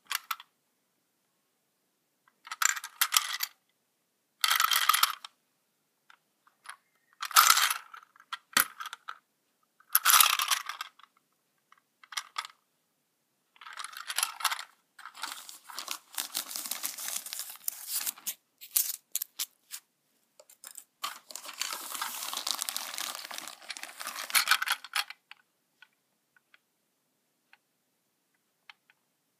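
A plastic toy train car being handled, clicking and rattling in short bursts with pauses, then a longer stretch of dense clattering from about halfway in.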